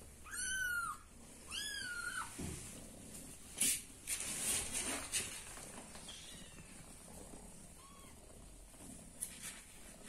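A young kitten meowing: two short high-pitched meows about a second apart, followed by rustling and a few fainter mews.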